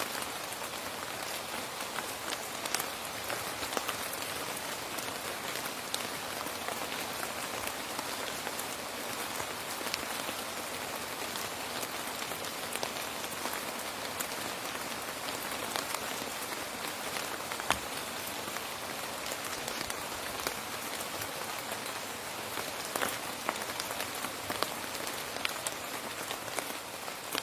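Steady rain falling on a hard surface, an even hiss with many individual drops pattering and tapping clearly throughout.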